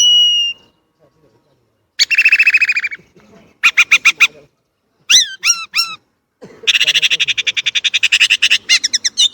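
Chinese blackbird singing a run of varied phrases. It opens with a short held whistle, then gives a buzzy trill, a few quick repeated notes and three down-slurred notes. Near the end comes a long, fast, rattling series of notes.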